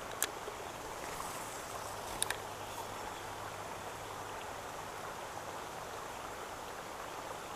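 Steady hiss of rain falling on pond water, with a sharp click from the spinning reel just after the start and a quick double click about two seconds in, then a faint low hum as the spinning reel is cranked to retrieve the lure.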